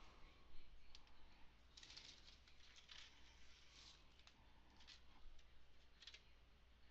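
Faint computer keyboard typing and clicks in short spurts, busiest in the middle.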